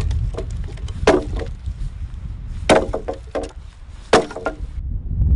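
Axe chopping into a log: three hard strikes about a second and a half apart, each followed by a few quieter knocks. A low wind rumble on the microphone runs underneath.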